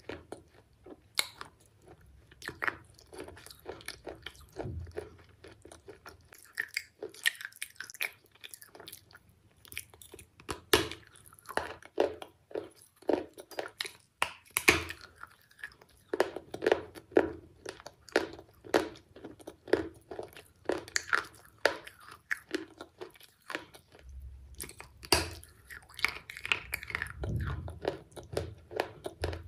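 A person chewing and crunching a crisp brown snack close to the microphone, with many irregular crackling bites and chews.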